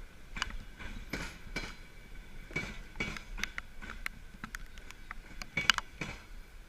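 Passenger coaches rolling slowly over the track: irregular sharp metallic clicks and clinks from the wheels, with a faint steady high squeal underneath.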